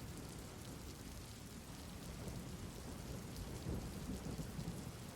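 Steady rain falling, with a low continuous rumble of thunder underneath.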